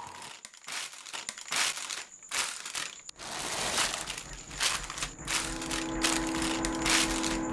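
Plastic bag crinkling and rustling in quick irregular strokes as it is handled and pulled out of a rubbish pit. About five seconds in, a steady low hum of several tones joins it.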